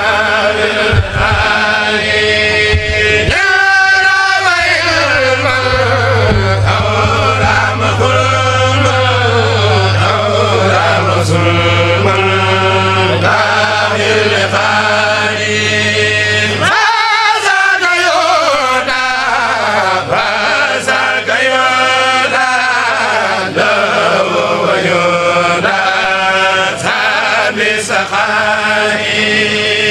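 A Mouride kourel, a group of voices chanting Arabic devotional poetry (khassaides) together in long, gliding melodic lines. A steady low hum sits under the voices and cuts out a little past halfway.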